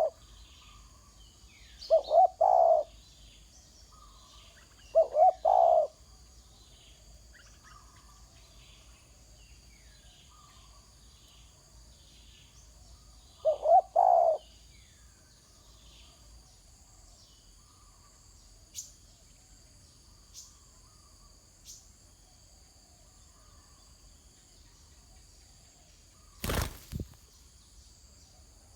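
Spotted dove cooing in short phrases of a few notes each, repeated three or four times in the first half, with faint chirps of small birds and a steady high insect drone behind. A knock near the end.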